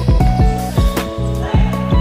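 Background music with a steady beat of about four low thumps a second under held chord tones.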